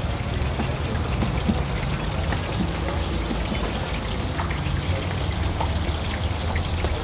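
Kebab patties deep-frying in oil in a large shallow pan: a steady sizzle with small scattered pops, over a low rumble.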